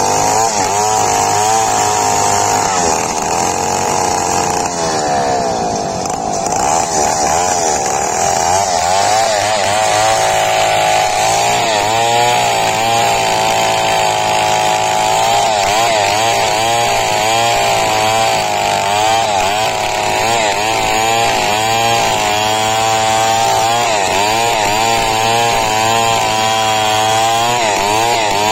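Two-stroke chainsaw running at high revs under load, ripping lengthwise through a teak log. Its pitch wavers up and down as the chain bites, with a brief drop in pitch and loudness about five seconds in.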